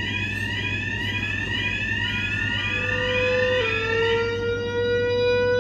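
Building fire alarm sounders going off during a test: a tone sweeping rapidly upward over and over, joined partway through by a steady tone that steps down in pitch once. The sweeping stops near the end while the steady tone carries on.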